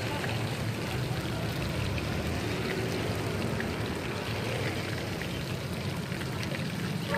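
Battered chicken pieces deep-frying in a large wok of hot oil: a steady sizzle full of small crackles and pops, over a low steady rumble.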